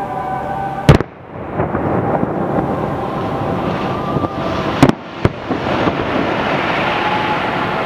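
Aerial fireworks bursting: a loud sharp bang about a second in and two more close together near five seconds, with crackling and rumbling from the shells between them.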